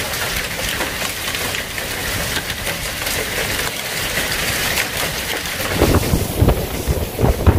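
Heavy storm rain falling hard, a dense hiss full of sharp ticks from drops striking. From about six seconds in, strong wind gusts buffet the microphone with a low rumble.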